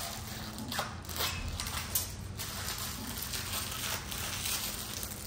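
Protective plastic film crackling as it is peeled off a metal radiator fan shroud and handled, in a few short crackly bursts.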